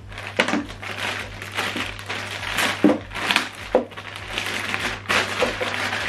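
Clear plastic packaging bag crinkling and rustling as it is handled and opened, in irregular bursts. A steady low hum runs underneath.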